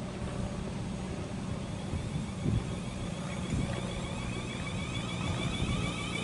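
South Western Railway electric multiple-unit train moving slowly past the platform, with a steady low hum. From about three and a half seconds in, a whine rises again and again in pitch and grows louder as the train picks up speed.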